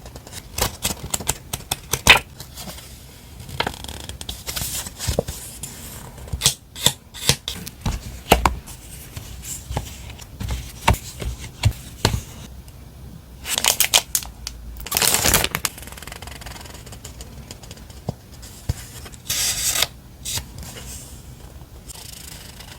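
Paper and packaging stationery being handled close to the microphone: a run of small taps and clicks, with a longer rustling, tearing-like burst around the middle and a shorter one near the end.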